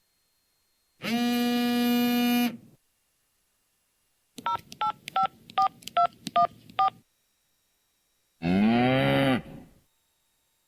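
Three stock sound effects in turn: a steady, buzzy pitched tone for about a second and a half; then about nine quick telephone keypad touch-tones being dialed; then a cow mooing, its pitch rising and falling.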